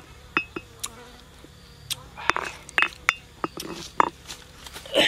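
Stone pestle knocking and clicking irregularly against a stone mortar while chilies and garlic are crushed, ending with a louder knock, over a faint insect buzz.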